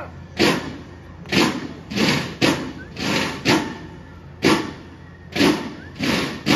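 A marching drum beating a steady cadence, about two strokes a second.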